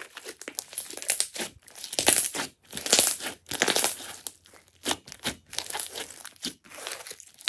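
Hands squeezing, stretching and pressing a large lump of glossy slime, making dense, irregular crackling with louder clusters every second or so.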